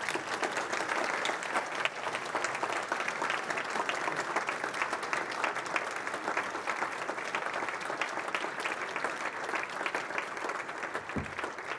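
Audience applauding steadily: a dense, even patter of many hands clapping.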